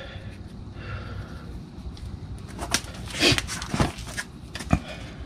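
Metal clicks and short scrapes as a new brake pad is worked into the caliper bracket's spring clips on a 2008 Ford F-250 rear brake. A few separate clicks come in the second half, the sharpest near the end.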